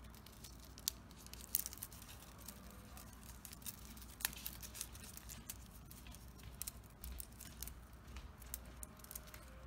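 Faint, scattered clicks and crinkles of a fringed strip of painted plastic bottle being rolled up between the fingers, over a low steady hum.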